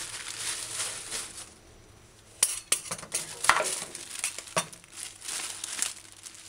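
Clear plastic bag of dried herbs crinkling as it is picked up and handled, with a few sharp clinks of metal measuring spoons from about two seconds in.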